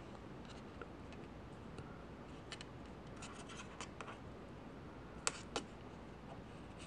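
Faint scratching and rubbing of nylon 550 paracord being handled as a snake knot is pulled tight, with two short sharp clicks a little after five seconds in.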